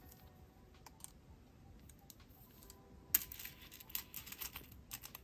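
Jewelry pliers and metal jump rings clicking against wire-linked glass beads and chain links as a necklace strand is handled: a few faint clicks, then a run of quick, light metallic clinks in the second half.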